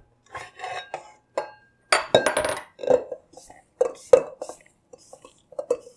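Irregular scrapes and clinks as a silicone spatula with a metal handle is worked around a stainless steel mixing bowl, scraping together soft, buttery shortbread dough.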